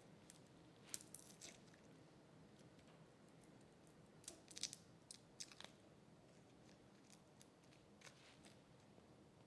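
Near silence with a few faint, sharp clicks and taps, grouped about a second in and again about four to five and a half seconds in, with one more near the end.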